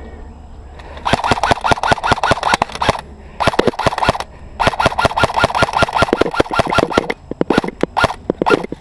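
AR57-style airsoft rifle firing on full auto: a long burst of rapid shots, a short one, then another long burst, followed near the end by several short bursts and single shots.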